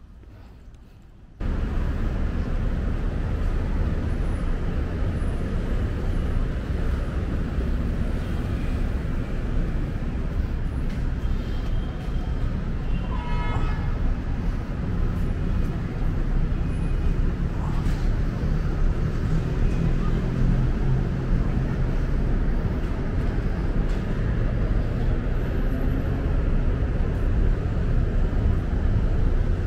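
City traffic noise, a steady rumble that starts abruptly about a second in, with a short vehicle horn toot about halfway through.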